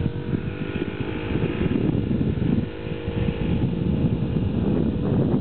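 Small motorbike engine of a hang-gliding scooter tow running steadily under load as it pulls the tow line during the launch, with a rough rumble of wind on the microphone.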